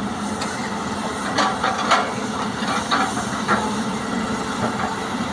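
Heavy machinery running steadily, the diesel engine of a Hitachi EX200 excavator loading soil into a dump truck, with several sharp knocks between about one and a half and three and a half seconds in.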